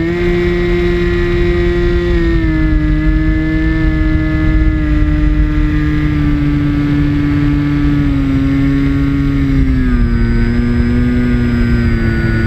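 RC airplane's motor and propeller running steadily at high throttle as the plane climbs, an even droning tone whose pitch steps slightly lower a few times, with wind rush on the onboard microphone.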